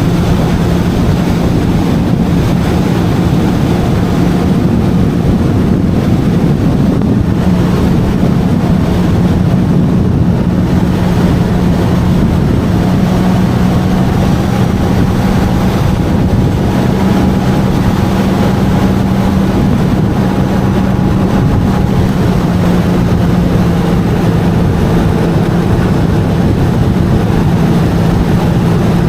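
Jet ski engine running steadily under way, a constant drone that wavers slightly in pitch, with water and wind rushing past.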